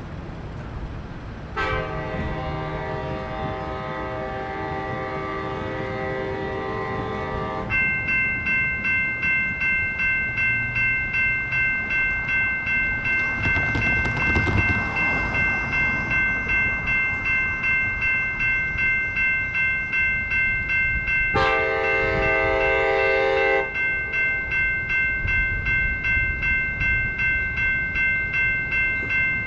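An approaching passenger train's air horn sounds a long blast of several notes together, then a railroad crossing's electronic warning bell starts ringing in steady, evenly spaced dings as the gates come down. A car drives over the crossing midway, and the horn sounds a second, shorter blast over the bell near the end.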